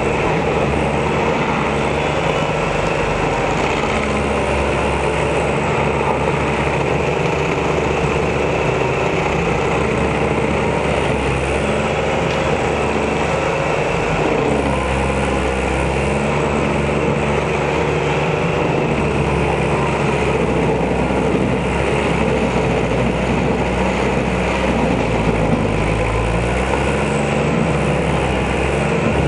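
Stump grinder's engine running while its spinning cutter wheel grinds into a tree stump, throwing wood chips. The engine note dips and recovers several times as the wheel bites under load.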